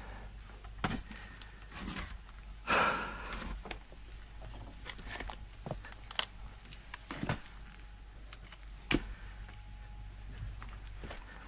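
Scattered wooden knocks and clacks of firewood being worked, with a brief scraping rustle about three seconds in.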